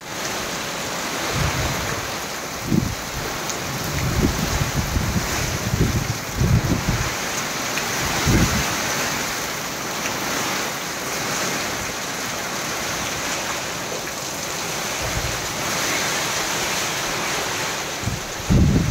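Torrential monsoon rain with strong wind: a steady hiss of the downpour, with gusts buffeting the microphone in low rumbling blows every few seconds, the heaviest near the end.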